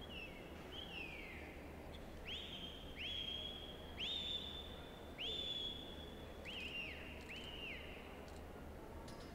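A sheepdog handler's whistle commands directing a herding dog working sheep: a series of about eight whistled notes, two falling glides first, then four longer notes that rise and hold, then two shorter notes that drop away near the end.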